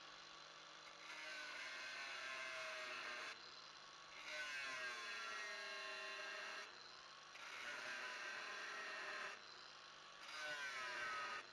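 Angle grinder cutting into the steel inner bearing race stuck on a wheel hub, in four passes of one to two and a half seconds each, its pitch dipping and recovering as the disc bites. The cut is made to loosen the race so it can be split off with a chisel.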